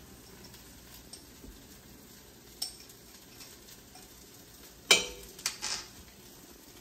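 Kitchen utensil clinks against cookware: a small click, then a sharp metal clank about five seconds in followed by a couple of lighter knocks, over a faint pan sizzle.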